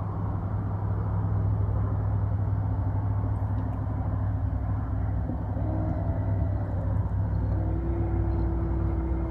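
Boat motor running steadily with a low, even hum; a faint higher steady whine joins near the end.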